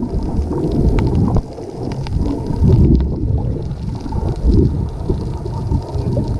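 Wind buffeting the microphone over a low, uneven rumble.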